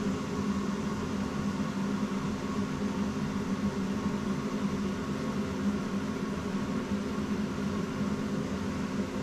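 Steady machine hum with a fixed low pitch, unchanging throughout.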